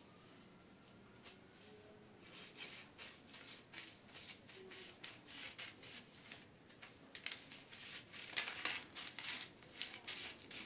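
Large black tailoring scissors cutting along a curved line through a paper pattern sheet: a run of short snips that starts about two seconds in and comes thicker toward the end.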